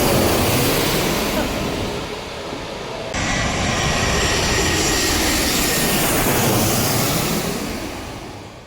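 Airplane fly-by sound effects: a loud rush of aircraft engine noise cuts off abruptly about three seconds in. A second fly-by takes over, swells, then fades away near the end.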